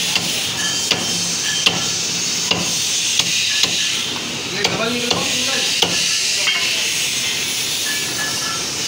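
Butcher's cleaver chopping mutton on a wooden block: sharp chops at an uneven pace, roughly one a second, over a steady background hiss.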